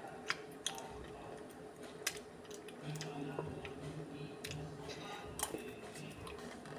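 Metal spoon clicking against teeth and the plastic ice cream tub while ice cream is eaten, several sharp separate clicks over soft mouth sounds.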